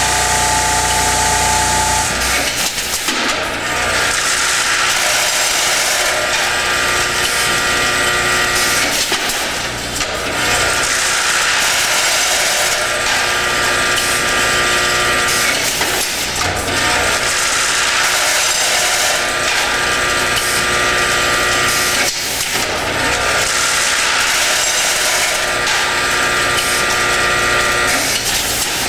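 Delta weigher bagging machine running: its vibrating tray buzzes and parts rattle through it into the bag, in a cycle that restarts about every six to seven seconds as bag after bag is filled.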